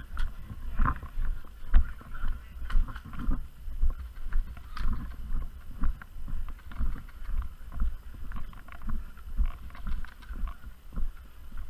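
Footsteps at a steady walking pace, about one and a half steps a second, with light clicks and rattles of gear.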